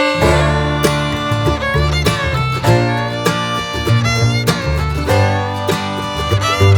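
Background music: a lively instrumental tune with a steady beat, plucked notes and a wavering melody line.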